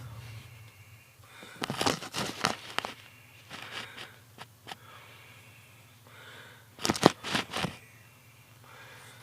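A car engine idling as a steady low hum, with two clusters of sharp clicks and rustles, about two seconds in and about seven seconds in, louder than the hum.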